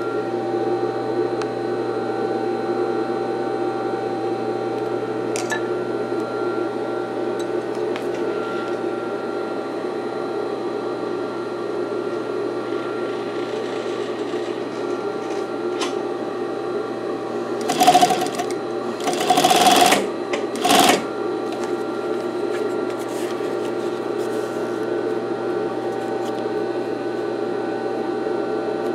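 Singer 241-12 industrial sewing machine, its motor humming steadily, with three short bursts of stitching in quick succession about two-thirds of the way through.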